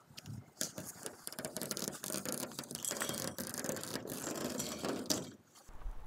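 Masking tape being peeled off a garage door, a dense irregular crackling rip that stops about five seconds in.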